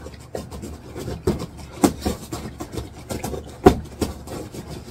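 Someone eating noodles with a metal fork from a ceramic bowl: a run of short slurps, smacks and clicks, with two sharper, louder ones about two seconds in and again near four seconds in.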